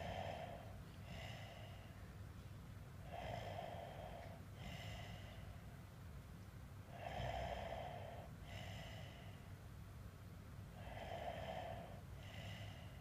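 Someone snoring in sleep in a regular rhythm, about one breath every four seconds. Each breath brings a louder snore followed about a second and a half later by a shorter, softer one.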